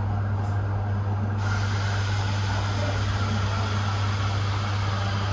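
Steady low mechanical hum over a constant background hiss of outdoor city noise.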